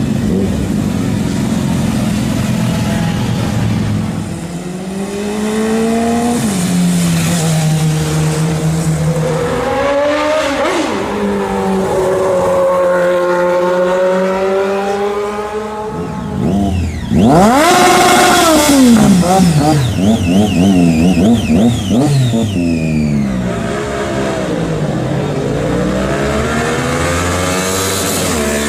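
Four-cylinder sport motorcycle engines revving and accelerating, their pitch climbing and dropping through the gears. The loudest moment comes about 17 seconds in, with a sharp rise and fall in pitch as a bike revs hard close by, followed by a few quick rev blips.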